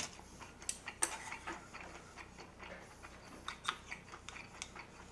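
Gimbap being chewed close to the microphone: faint, irregular mouth clicks.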